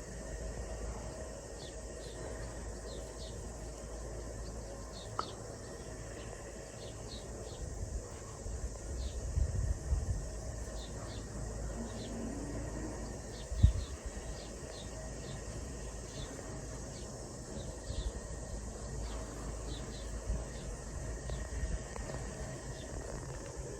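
Outdoor summer garden ambience: scattered short, high chirps from insects or birds over a steady low wind rumble, with one sharp thump a little past halfway.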